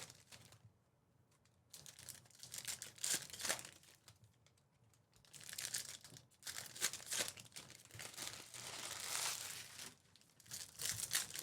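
Foil wrappers of Panini Mosaic football card packs crinkling and tearing as packs are ripped open and handled. The crackling comes in several bursts with short quiet gaps.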